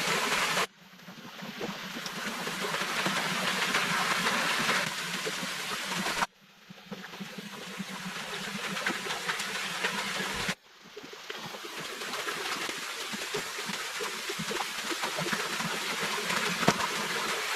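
Stream water running in a steady rush. It breaks off abruptly three times and fades back in after each break.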